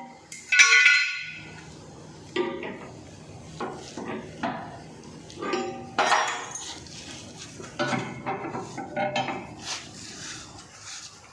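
Hand tools knocking and clinking against metal and hard surfaces during repair work: a string of irregular sharp knocks, several ringing briefly, the loudest about half a second in.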